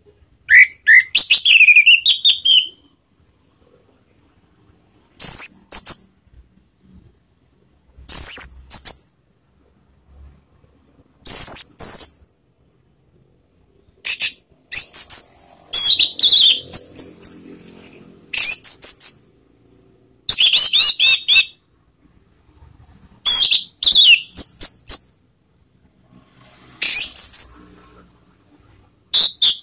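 Orange-headed thrush singing: short, high, quick phrases of varied notes, coming every two or three seconds with pauses between, the first one, just after the start, the longest.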